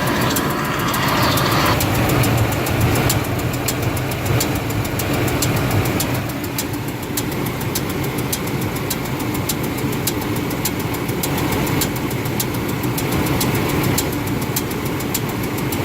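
Ford F-150 engine idling steadily with a fast, even ticking from the valve train.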